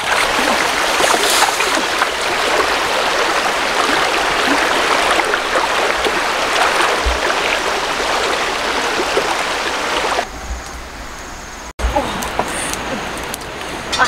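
Shallow river water rushing and splashing steadily as fish are rinsed in a metal wok. It drops away sharply about ten seconds in, and a few light clinks come near the end.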